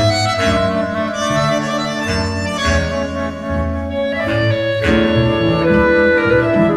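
Slow instrumental film-score music: long held, reedy notes, organ- or accordion-like, carry a melody over low bass notes.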